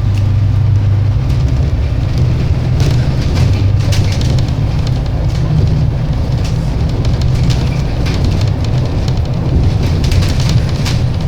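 MAN-chassis Alexander Dennis Enviro 300 bus running, a steady low engine drone with frequent light rattles and knocks over it.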